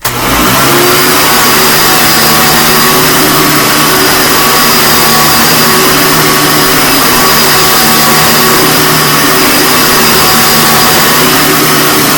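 1997 Hoover Sprint U4257-930 vacuum cleaner switched on: the motor spins up over the first second, then runs steadily and loud with a high whine.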